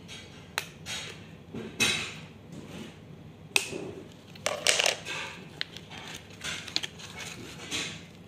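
Scissors cutting through a cardboard toy box and its packaging, heard as irregular crunches and sharp clicks.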